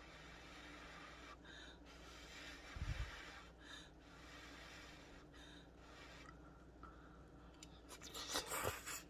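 Quiet breaths through the nose about every two seconds while chewing a mouthful of shrimp and grits, with a soft low thump about three seconds in. Near the end come louder wet mouth clicks and smacks as another spoonful goes in.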